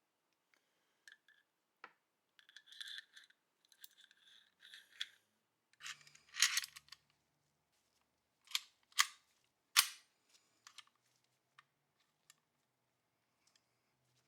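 Metal parts of a Walther P38 pistol worked by hand: short sliding scrapes and scattered clicks, then three sharp clicks in quick succession past the middle.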